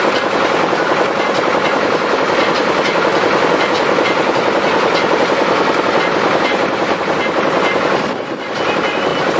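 A boat's engine running steadily, heard from on board, with a brief lull about eight seconds in.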